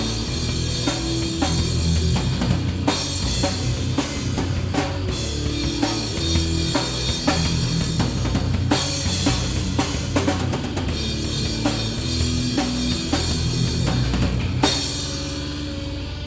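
Live hardcore band playing loud, with drum kit (kick, snare, cymbals) pounding under distorted guitars and bass. The band stops on a last hit near the end, leaving the guitar and bass ringing out.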